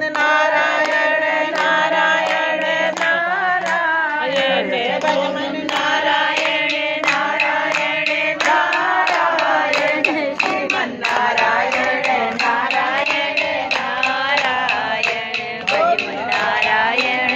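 Voices singing a Hindu devotional chant (bhajan) in praise of Narayan, with steady rhythmic hand clapping keeping the beat.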